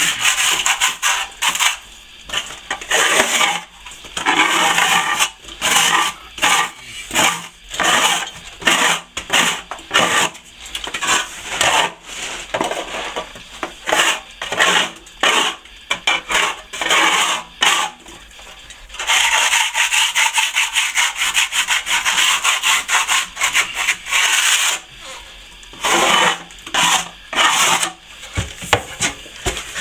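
Steel scraper scraped over setting plaster in repeated strokes, roughly one or two a second, with one longer unbroken scrape about two-thirds of the way through. The plaster has begun to harden, which makes it much harder to scrape back.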